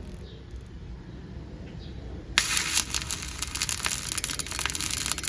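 Stick (arc) welder welding a nut onto a steel caster bracket: after a quiet couple of seconds the arc strikes suddenly, about halfway in, and then crackles steadily.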